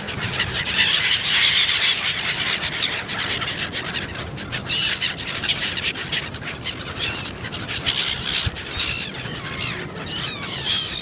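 A flock of gulls calling over one another with shrill squawks and squeals, densest in the first two seconds, then breaking into separate calls repeated again and again.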